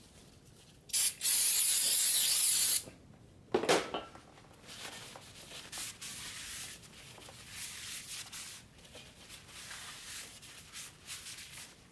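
Aerosol brake cleaner spraying in one loud hiss of about two seconds onto a new cross-drilled brake rotor, followed by a rag wiping and scrubbing over the rotor's metal face, stripping off the factory anti-rust oil.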